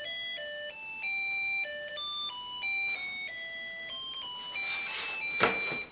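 A Snap Circuits Jr. music IC plays a simple electronic tune through the kit's small speaker, one beeping note at a time, stepping up and down in pitch. The tune was set off by tapping the whistle chip, and a 100-ohm resistor in the circuit makes it a lot lower. Near the end the tune is joined by rustling and a sharp tap against the plastic board.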